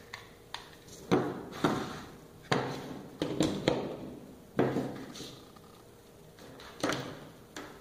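Plastic clacks and knocks of a PoE injector, its power cord and plugs being handled on a tabletop while the power plug is pushed into a power strip: about nine sharp knocks, irregularly spaced.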